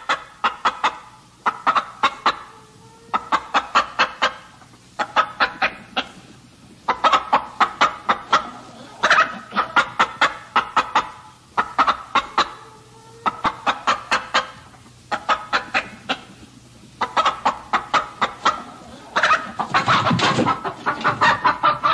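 Chickens clucking in quick runs of short, sharp clucks that repeat every couple of seconds, louder and busier near the end.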